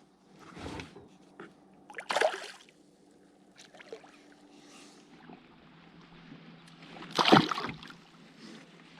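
Water splashing beside a kayak in a few short bursts, the loudest about seven seconds in, as a hooked bass is brought to the boat.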